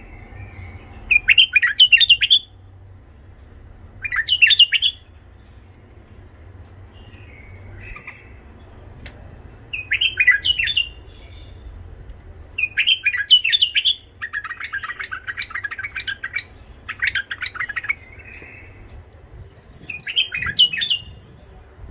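White-eared bulbul singing with a rough-voiced song: short phrases about a second long, repeated every few seconds, with one longer, denser run of song in the middle.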